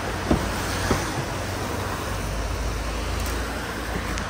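A car door handle pulled and the door unlatching with two sharp clicks, about a third of a second and about a second in, over a steady hiss of rain and wet-road traffic.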